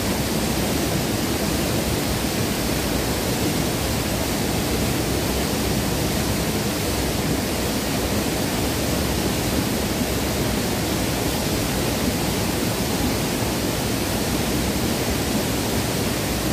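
Fast river water rushing over rocks, a steady unbroken rush.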